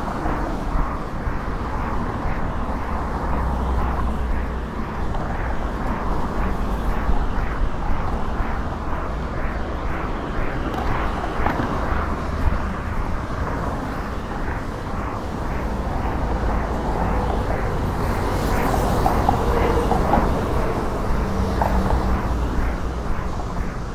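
Steady road traffic on an elevated roadway: cars passing close by, with a constant low rumble and a brighter hiss of a passing vehicle a little before the end.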